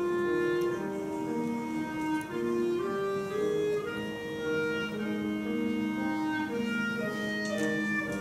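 School concert band playing a slow, legato passage: woodwinds and brass holding sustained notes over chords, the melody moving from note to note in steps.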